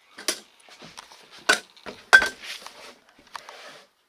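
A series of sharp metallic clinks and knocks from thin metal obstacle pieces handled on a wooden floor, the loudest about a second and a half and two seconds in.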